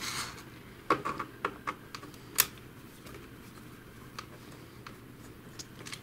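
Irregular light plastic clicks and taps from the Mamibot robot vacuum's plastic chassis and wheel module as they are handled and worked loose by hand during disassembly.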